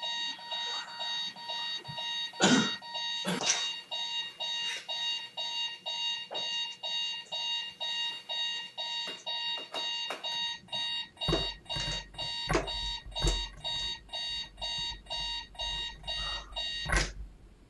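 Rocket-launching alarm clock sounding its electronic alarm, a steady high tone pulsing about twice a second, which keeps going until the launched piece is found. Two loud knocks come early, a low rumble of handling joins from about eleven seconds in, and the alarm cuts off just before the end.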